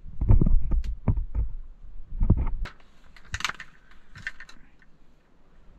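Handling noise from a camera being picked up and moved: several dull thumps and sharp knocks, then a brief rustling clatter about three and a half seconds in.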